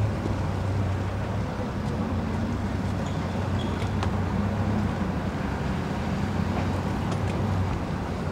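An engine idling steadily with a low hum.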